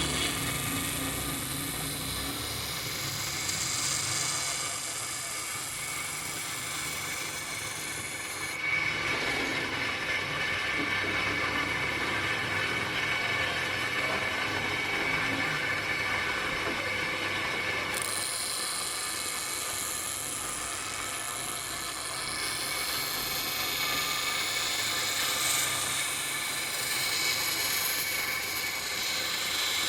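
Motor-driven abrasive wheel running against steel scissor blades: a steady grinding hiss over a motor hum. The sound changes abruptly about nine seconds in and again near eighteen seconds.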